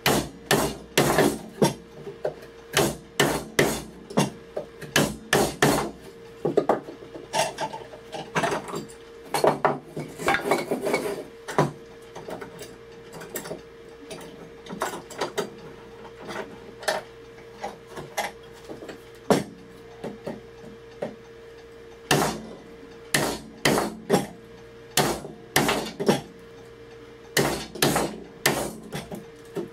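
Hammer striking a mortise chisel, chopping a mortise into wood: runs of sharp knocks, about two to three a second, broken by short pauses. A faint steady hum runs underneath.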